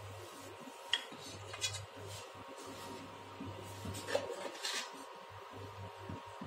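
Light metal clinks and knocks of a flat handheld grater being handled and put aside, a few scattered taps about a second in and a small cluster around four seconds.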